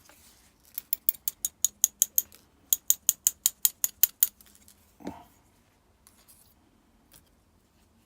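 Rapid light metallic clicks from a GEGE pin-tumbler lock cylinder being tapped to dump out its springs, in two runs of about ten evenly spaced taps. A single duller knock follows about five seconds in.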